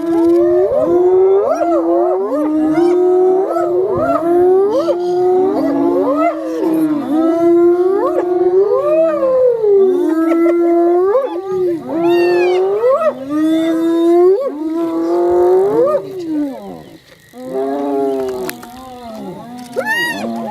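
Several hyenas calling over one another: loud, pitched, whining cries that swoop up and fall back again and again. They break off briefly near the end, then resume more faintly.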